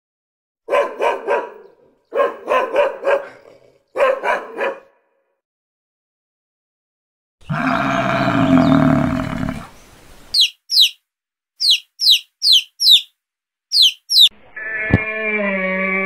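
A dog barking in three quick bunches of three or four barks. Then a long, low, rough bellow, as of a water buffalo, followed by a run of short, high, falling bird chirps. Near the end a camel begins a long groaning call that bends in pitch.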